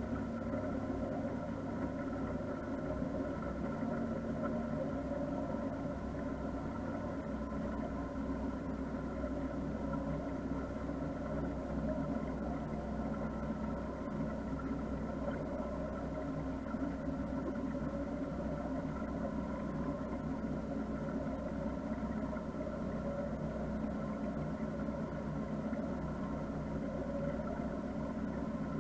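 Motor cruiser's engine running steadily, a constant-pitch hum that holds unchanged throughout.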